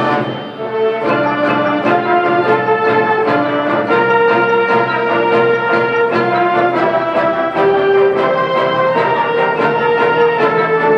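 High school symphonic band playing: held brass and woodwind notes in several parts over a steady pulse of short percussion strokes, after a brief dip in level about half a second in.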